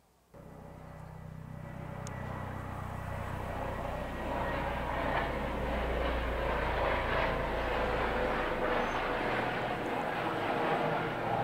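Engine noise with a low hum and a rushing sound over it. It starts suddenly, swells over the first few seconds, then holds steady.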